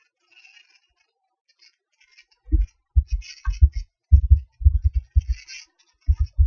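Typing on a computer keyboard: irregular runs of dull keystroke knocks that start about two and a half seconds in, after a near-silent opening.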